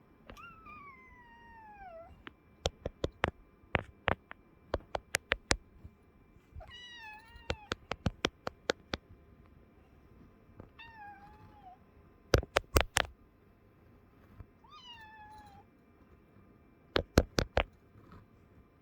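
Domestic cat meowing four times to beg for a treat, each meow falling in pitch. Between the meows come quick runs of sharp clicks or taps, louder than the meows.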